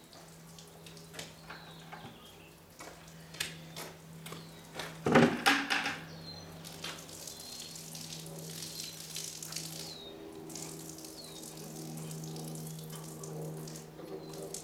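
Water sloshing and splashing in a bucket as a car-wash sponge is dunked and wrung out, with scattered drips and small splashes. The loudest splash comes about five seconds in.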